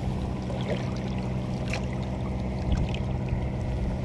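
Water trickling and splashing as a monofilament current net is pulled up out of the river shallows, over a steady low hum.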